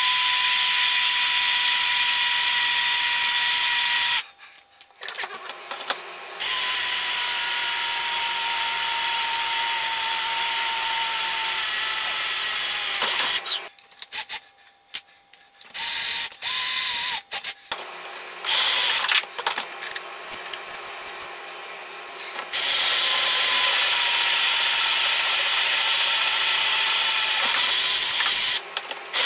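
Handheld electric drill boring holes through a metal muffler flange plate clamped in a vise, in three long runs with stops and a few short bursts between. The motor gives a steady whine that drifts slightly lower as the bit cuts.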